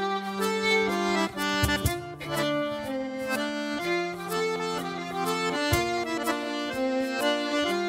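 Traditional Breton dance music played on accordion: a melody of held reedy notes over long sustained bass notes.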